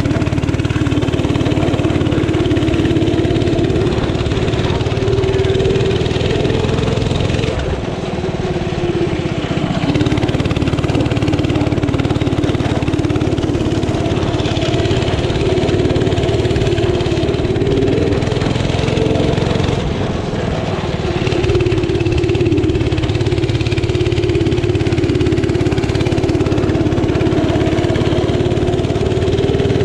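Small engine of a solid-tire racing lawn mower running hard at speed, its pitch wavering, easing briefly about eight seconds in and again around twenty seconds.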